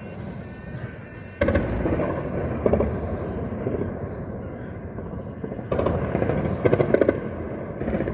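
Bursts of automatic gunfire, starting suddenly about a second and a half in, with a longer string of rapid shots in the second half.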